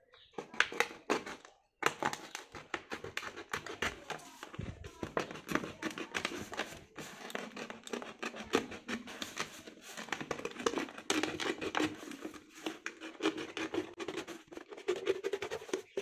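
Snap-off utility knife sawing through a thin plastic soda bottle in many quick strokes, the plastic crackling and crinkling as it is cut and gripped.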